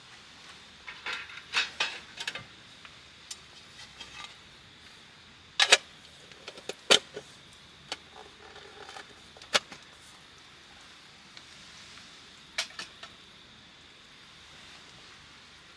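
Camp cookware and gear being handled: a series of sharp clinks and knocks, the loudest pair about six to seven seconds in.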